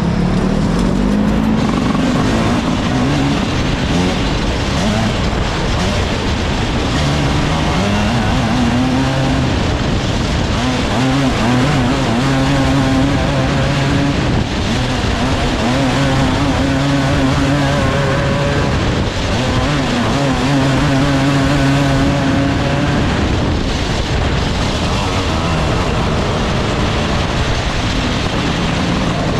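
Motor vehicle engines running hard, their pitch repeatedly climbing and then holding steady at high revs over a constant noisy roar.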